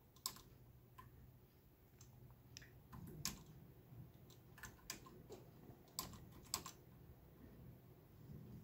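Faint computer keyboard key presses, a dozen or so single clicks spaced irregularly, stepping through BIOS setup menus, over a low steady hum.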